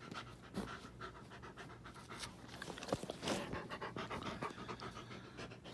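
A dog panting right up close to the microphone, a quick, uneven run of breaths with a few small clicks.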